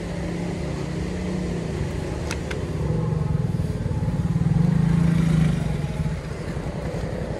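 Small motorcycle engine running as it rides slowly past, growing louder to a peak about two-thirds of the way through, then fading. Two short clicks about a third of the way in.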